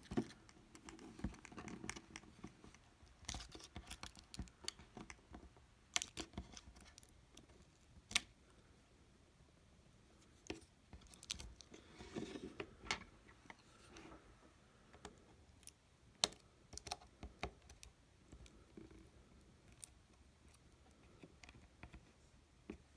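Small hand tool clicking and scraping against an opened iPhone 6s as its battery is pried up and the torn adhesive strips are picked out: faint, sharp clicks at irregular intervals with soft scraping between them.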